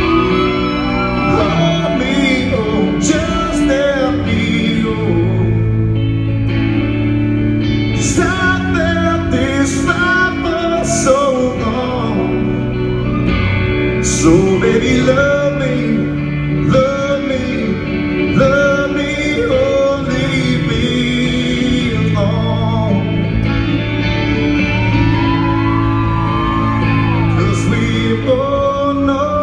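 Live country band playing: a male lead vocalist singing over electric guitar, bass and drums, with cymbal crashes at several points.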